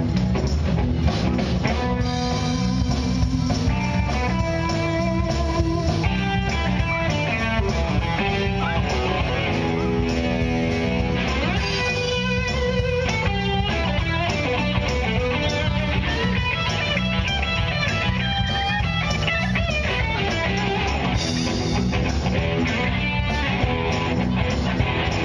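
Live blues-rock band playing an instrumental passage: electric guitar lines over a steady beat from drum kit and bass guitar.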